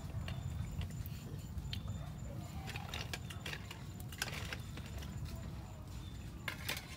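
Light rustling and scattered sharp clicks over a low steady rumble, with a cluster of clicks about four seconds in and again near the end.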